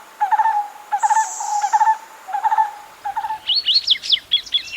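Barbet calling: a low, repeated note about twice a second. About three and a half seconds in it stops, and a higher, rapid twittering of another small bird takes over.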